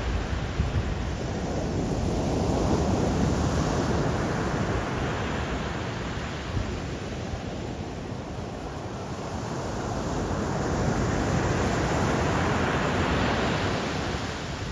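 Black Sea surf: waves rushing and washing in as a continuous noise, swelling louder about three seconds in and again over a few seconds near the end.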